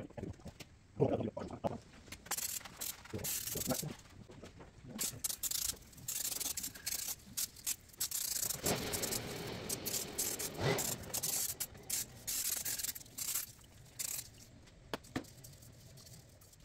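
Aerosol cleaner sprayed onto the metal engine case in repeated hissing bursts of a second or more, with a rag rubbing and scraping in between as the crankshaft seal housing is cleaned. It goes quieter near the end, with a few light clicks.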